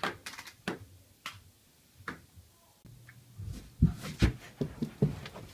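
A few scattered sharp clicks, then a quick run of dull thumps and knocks: a child's body and feet hitting a carpeted floor and a wall as he flails on his back.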